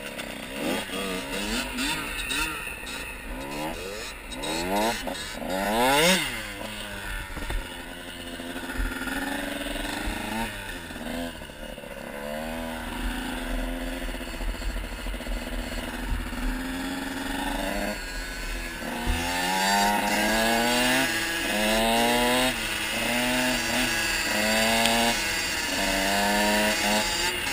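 Two-stroke dirt bike engines, the KTM SX 85 under the camera and a second bike alongside, revving hard, their pitches rising and falling and crossing each other, with wind rushing over the helmet-mounted camera. In the second half the engine note climbs and drops back about once a second as it shifts up through the gears.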